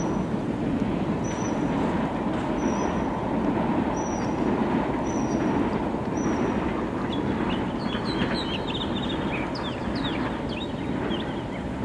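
Steady rushing noise of rain and road traffic. Over it a bird repeats a short, high chirp about every second and a half, then from about seven seconds in several birds chirp in a quick, varied flurry.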